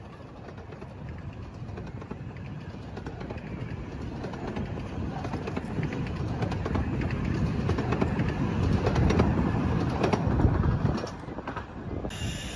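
Steam locomotive working hard on its approach, its rapid exhaust beats growing steadily louder, then dropping away shortly before the end.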